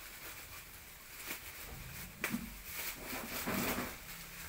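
Hands rustling and crinkling a plastic bag and paper wrapping as they are worked off a plant's root ball, with a sharp click a little past two seconds in and the loudest rustling a second or so later.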